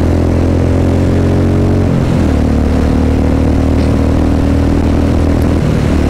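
Royal Enfield Classic 350 Reborn's single-cylinder engine running under way through a short Punjab-style aftermarket silencer with the catalytic converter still fitted. The exhaust note is steady, bassy and a bit soft, with a brief break about two seconds in after which the note settles at a slightly different pitch.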